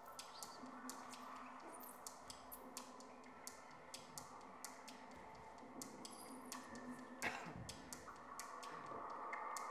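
Quiet stage sound: soft, irregular clicks a few times a second over faint steady tones, with one dull knock about seven seconds in.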